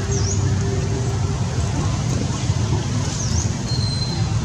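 Steady low outdoor rumble, like distant road traffic, with a few brief high chirps from birds.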